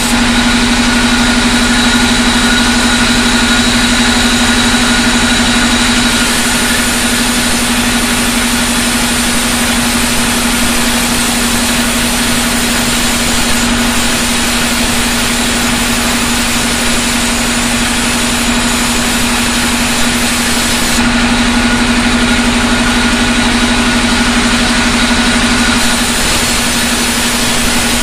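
Large sawmill band saw running steadily with a constant hum while a jackfruit-wood plank is ripped through it. The sound shifts a little about six seconds in and again about twenty-one seconds in.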